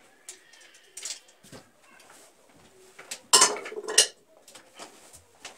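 Scattered clicks and knocks of tools and fittings being handled during plumbing work, then a loud metallic clatter lasting under a second about three seconds in.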